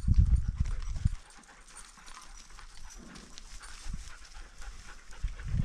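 Knocks and rumble of the camera being handled for about the first second, then a quieter stretch with faint sounds of hunting dogs searching the scrub, including a short low bark about three seconds in.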